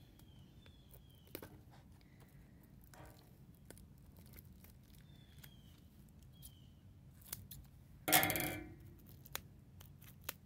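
Plastic shrink-wrap being slit and torn off a CD album box: scattered light clicks and rustles, with one louder burst of crinkling, tearing plastic about eight seconds in.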